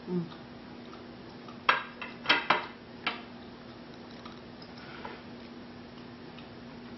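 Metal knife and fork clinking against a plate, four short sharp clinks a couple of seconds in.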